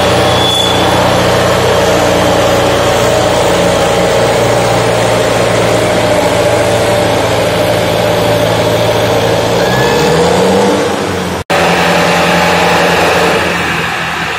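Diesel engines of a Preet tractor and a Hindustan tractor running hard under load as they pull against each other in a tractor tug-of-war. Their note is steady, with one engine's pitch rising briefly about ten seconds in.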